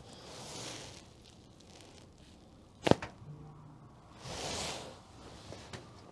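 A single sharp crack from a chiropractic neck adjustment done in extension, about three seconds in, with a soft whooshing noise about a second long before it and again after it.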